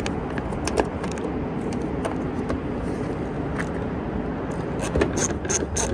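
Steady background noise with a few small handling clicks, then about four and a half seconds in a ratchet starts clicking in quick, even strokes, about four a second, as the door handle's adjusting screw is turned.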